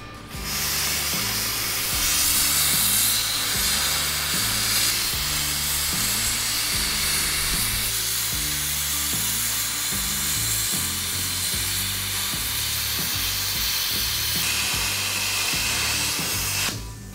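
Cutting torch hissing steadily as it burns through steel, cutting welded-in blanks out of a tank road wheel; the hiss starts sharply about half a second in and cuts off just before the end. Background music with a stepping bass line runs underneath.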